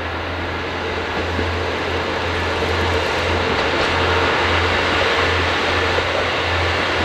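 Diesel train running along the track, a steady rumble growing somewhat louder, with a low hum that pulses about twice a second.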